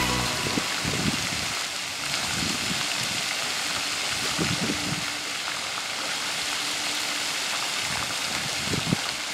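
Pond fountain jet splashing back down onto the water: a steady rush of falling water.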